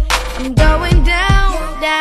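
A song playing: a sung melody over a beat with drums and bass. The bass and drums drop out near the end, leaving the voice and backing.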